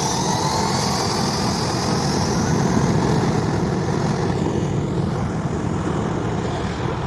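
Airliner's engines running loud and close: a wide steady rush with a whine on top, swelling to its loudest about three seconds in and then slowly fading.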